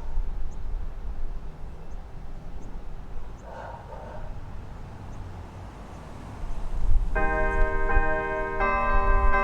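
Church bells start ringing a tune about seven seconds in, a new bell struck roughly every three quarters of a second while the earlier ones keep ringing. Before that there is only a low background rumble.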